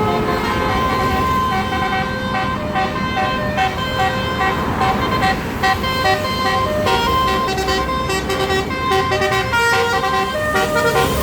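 Basuri telolet multi-note air horn on a tour bus playing a tune: several horn tones sound together and change pitch in steps. The notes turn short and quick in the second half, over low vehicle noise.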